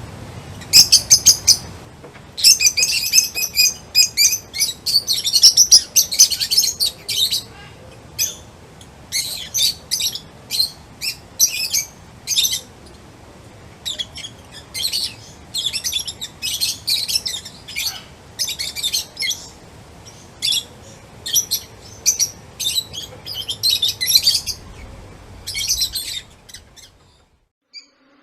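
Small songbirds chirping: quick runs of short, high chirps in dense, overlapping bursts, breaking off near the end.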